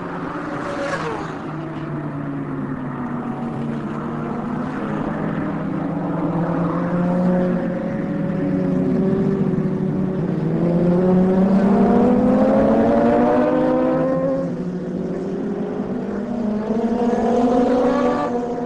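Racing superbike engines revving hard as the bikes pass, the pitch climbing through each gear and dropping back at the shifts, over and over. Loudest a little past the middle.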